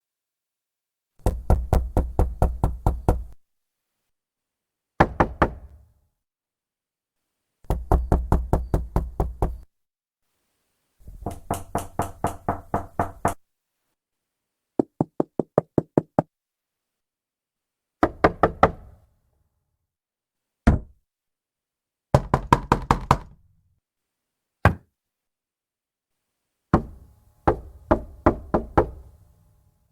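Fist knocking on a wooden door in about ten separate bouts with silence between: fast runs of many knocks, some lighter quicker taps, and a few single knocks.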